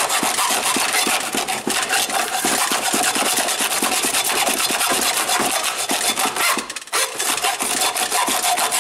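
Hacksaw cutting through the steel can of a used spin-on oil filter held in a bench vise: loud, continuous rasping strokes with a steady ringing note underneath. There is a brief pause about two-thirds of the way through.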